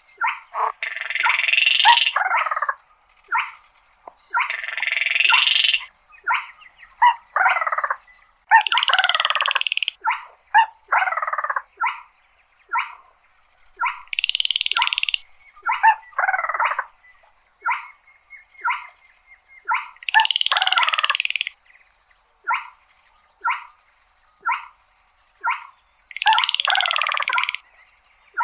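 Baillon's crake calling. Short single notes come about once a second, broken up by six longer rattling phrases of a second or so each.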